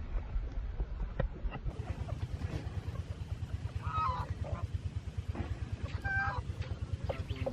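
Goats bleating twice, short calls about four and six seconds in, over a low steady rumble.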